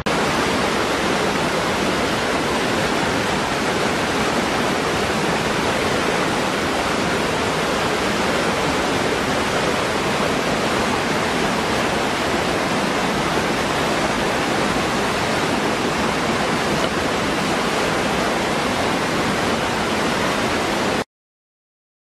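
Small waterfall pouring over rock into a pool: a steady rush of falling water that cuts off suddenly near the end.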